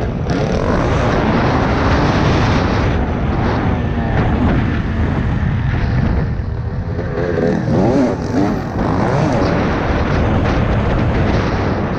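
Single-cylinder two-stroke engine of a TM 300 EN dirt bike under way, its pitch rising and falling repeatedly as the throttle is worked. Heavy wind noise rushes over the helmet-camera microphone throughout.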